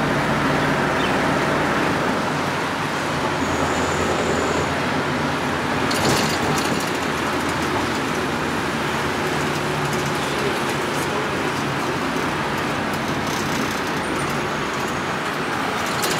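Steady engine and road noise heard from the open rear bench of a moving songthaew, a pickup-truck shared taxi, with motorbike traffic running close behind.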